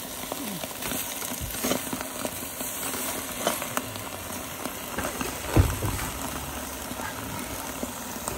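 Meat hissing and sizzling on hot stones inside a metal milk can as khorkhog is layered by hand, with a few knocks against the can; the loudest is a thump about five and a half seconds in.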